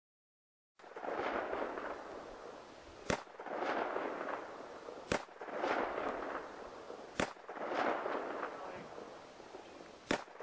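Gunshots: four sharp cracks about two seconds apart, with a rushing noise swelling and fading between them, starting about a second in.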